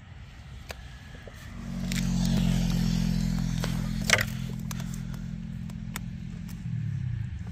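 An engine running with a steady low pitch, coming in about a second and a half in, loudest soon after and then slowly easing off. A single sharp click about four seconds in.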